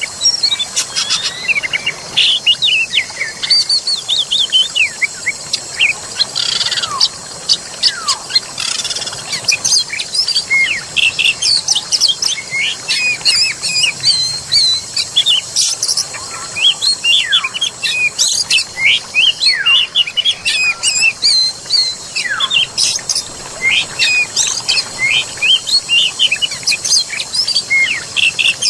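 A dense chorus of songbirds chirping and whistling in quick succession, with several whistles that drop steeply in pitch, over a steady high hiss.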